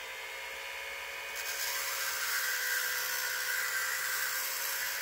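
Dremel rotary tool running with a steady whine, its abrasive bit grinding down a plastic antenna shaft. The grinding hiss grows louder about a second and a half in, as the bit bears on the plastic.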